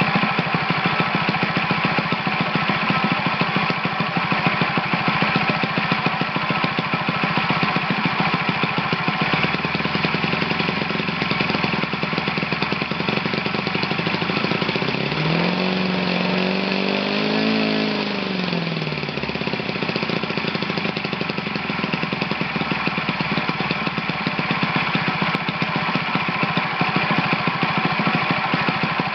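Enya 90 4C single-cylinder four-stroke glow model engine running steadily through a J'Tec JT-M9S in-cowl muffler. A brief tone rises and then falls about halfway through.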